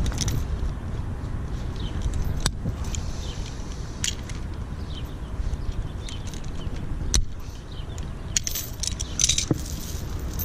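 Galvanized steel tire-chain links clinking and jangling as they are handled, with sharp metallic clicks from locking pliers clamping and releasing a link. There are a few single clicks, then a quick run of clinks near the end, over a steady low rumble.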